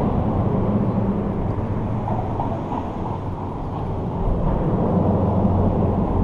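Steady, muffled low rumble of traffic on the bridge overhead.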